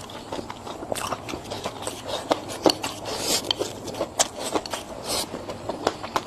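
A person biting and chewing crunchy food, with irregular crisp crunches several times a second.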